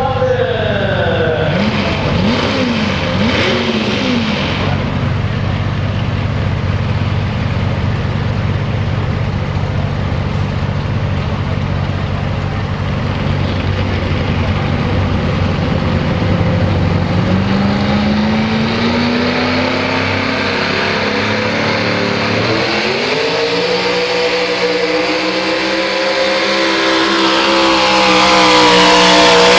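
A modified pickup pulling truck's engine idles, with a few quick revs in the first few seconds. About two-thirds of the way through it revs up sharply and stays at high revs under load as the truck pulls the sled, getting louder near the end.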